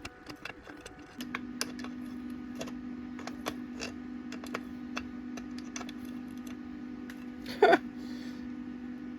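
Small metallic clicks and ticks at an uneven pace as a hot broken bolt, with a welded-on nut, is slowly unscrewed from a circular saw. A steady low hum starts about a second in, and a single sharp metallic clank rings out near the end.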